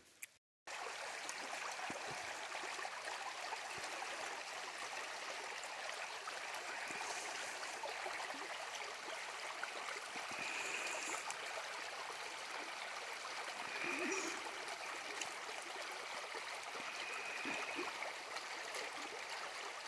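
Floodwater from an overflowing creek rushing in a steady, shallow flow across the forest floor around tree trunks. It starts just under a second in.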